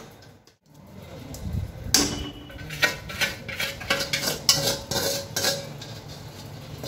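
A steel spoon scraping and clinking against a metal kadai while stirring thick gongura pickle paste, a quick run of sharp scrapes and knocks starting about two seconds in.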